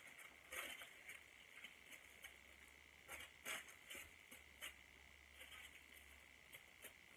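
Near silence: a few faint rustles and ticks as a tail comb and aluminium hair foils are handled in a mannequin's hair, over a faint steady hum.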